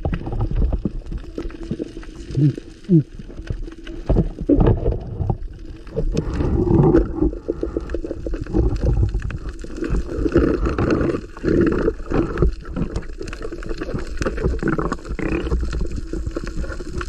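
Water gurgling and churning around an underwater camera, with scattered sharp clicks and knocks.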